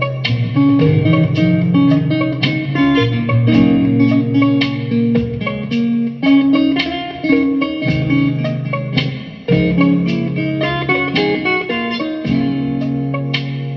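Mellow guitar music: a steady run of plucked guitar notes over held low bass notes.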